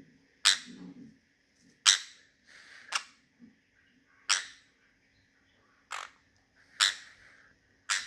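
Small pet parrot giving short, sharp, high-pitched calls, about seven of them spaced roughly a second apart.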